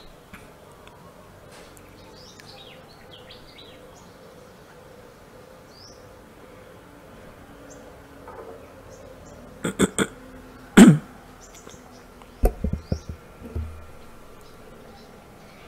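Faint background with short bird chirps and a steady insect buzz. About ten seconds in come a few sharp knocks, then the loudest, a thump with a brief falling tone, followed by several softer thumps.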